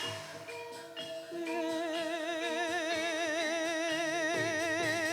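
Dance-accompaniment music: after a quieter first second, a long held melodic note with a regular wavering vibrato sounds over a lower steady note for several seconds.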